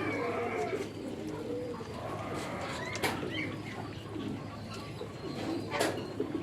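Farmyard poultry calling, several low calls overlapping, with a couple of sharp clicks or knocks.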